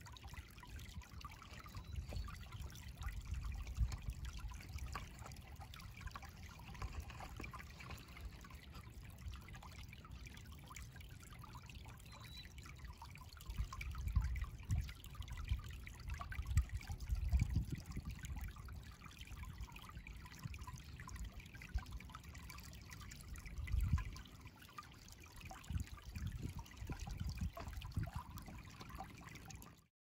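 Shallow river water trickling over rounded cobbles, with uneven low gusts of wind buffeting the microphone now and then.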